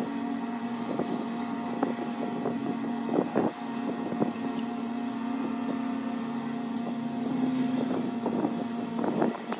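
A steady motor hum runs throughout, with light scratches and taps of a steel scribe marking a line on blue-dyed file steel.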